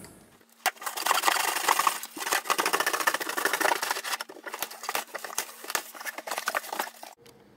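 A cardboard shipping box being cut open with a small blade and its flaps pulled apart: a continuous run of scraping, ripping and crinkling with many sharp clicks, stopping abruptly near the end.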